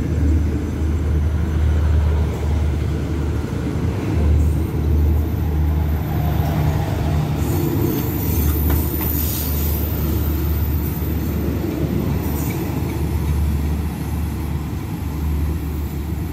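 Passenger coaches of a departing express train rolling past close by, a steady low rumble of steel wheels on rail that eases off a little near the end as the last coach goes by.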